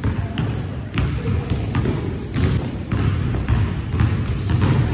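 Basketballs bouncing on a hardwood gym floor, a string of sharp thuds echoing in the large hall, with short high squeaks between them.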